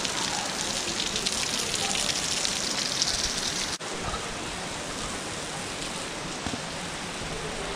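Steady rush of falling and running water, a hiss with no separate events. It breaks off sharply about four seconds in and goes on a little quieter and duller.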